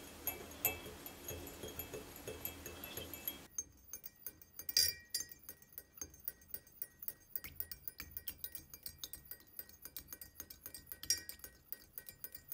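Small metal whisk clinking against the sides of a glass measuring cup as a liquid is stirred: a rapid run of light taps, several a second, each with a short glassy ring. The taps get quicker and clearer about three and a half seconds in.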